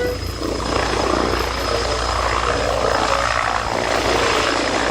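Helicopter sound: steady rotor and engine noise with a constant low hum and a thin, steady high whine.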